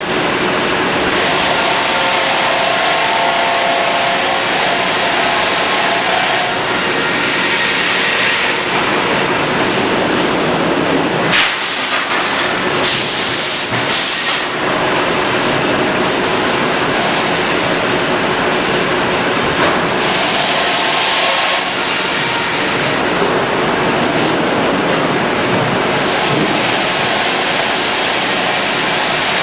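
Sawmill machinery running with a steady, dense din. About 11 to 14 seconds in come three short, loud bursts of high-pitched hissing noise.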